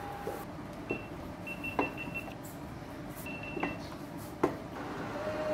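Short high beeps from an induction cooktop's control panel, several in a row, mixed with a few sharp knocks of a steel ladle against a stainless steel pot. The loudest knock comes near the end.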